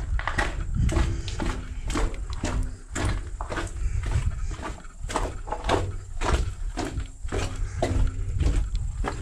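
Hurried footsteps crunching over loose stones and rubble on a tunnel floor, about two to three steps a second, over a steady low rumble.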